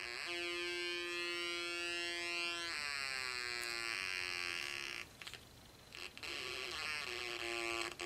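A two-transistor kit electronic siren buzzing through a small loudspeaker. With a 4.7k resistor in place of the 47k, the capacitor charges very quickly, so the tone comes on at once at a steady pitch instead of rising. About three seconds in the tone shifts, and it breaks off briefly twice in the second half.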